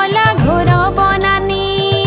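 Odia devotional bhajan music: a gliding melodic lead line over a steady low drum beat.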